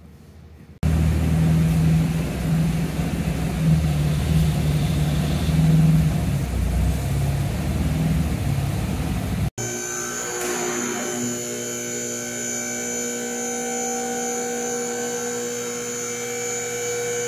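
1967 Jaguar E-Type's engine running loud and low as the car is driven in, on its old exhaust whose flex pipes are shot and a source of leaks, which made a lot of noise. After a cut about nine and a half seconds in, a steady electric motor hum with a high whine as the two-post lift raises the car.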